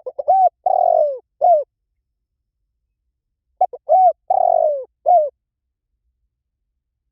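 Spotted dove cooing: two song phrases about three and a half seconds apart, each a couple of short coos, a longer drawn-out coo and a closing coo.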